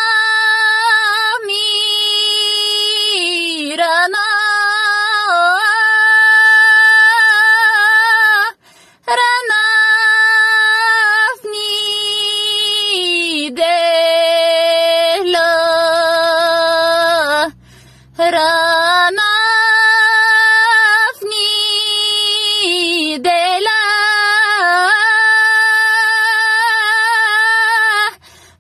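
A woman sings a Bulgarian folk song in a single voice, holding long notes with ornamented turns and pitch bends, with short breath pauses about nine seconds in and again halfway through.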